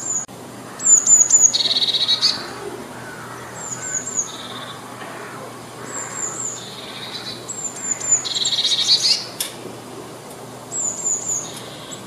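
Blue tit singing: about six repeated phrases, each two or three thin, high, falling notes followed by a lower, fast trill.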